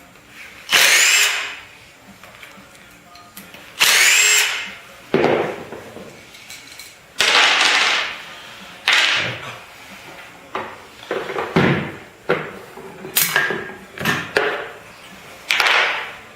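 Cordless power screwdriver or drill unscrewing bolts in repeated short bursts of about a second each, the motor's whine rising as it spins up in some of them.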